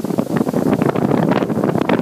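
Wind buffeting the microphone on a boat under way: a dense, steady rumble with constant crackling.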